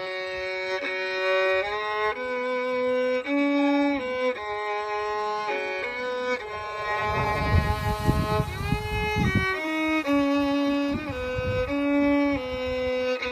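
Background music: a slow melody on a bowed string instrument like a violin, held notes that step from one pitch to the next with a few slides between them. For about two seconds near the middle a low rumbling noise sits under the melody.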